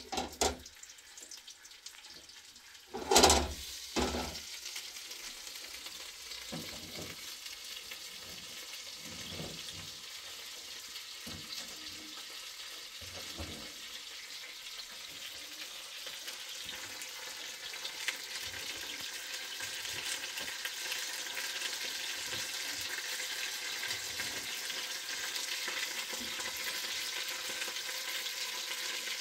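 Food frying in a pan, a steady sizzle that grows slowly louder, with two loud clunks about three and four seconds in and soft knocks of stirring now and then.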